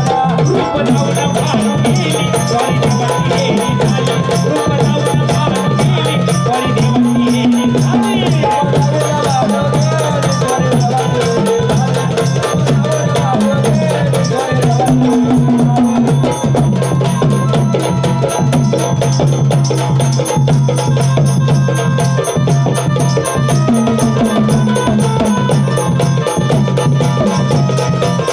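Loud Gondhal devotional music: fast, dense hand-drum percussion over a steady low drone.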